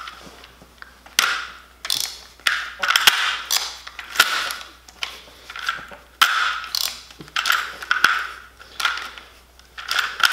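Rifle cartridges being pushed down off a stripper clip through a loader into a Magpul D-60 polymer drum magazine. Each push gives a short scrape and click, repeated about every half second to a second.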